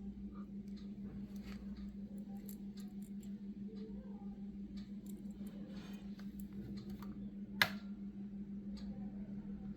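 Faint clicks and ticks from handling a tiny metal diecast car, with one sharp click about two-thirds of the way in, over a steady low hum.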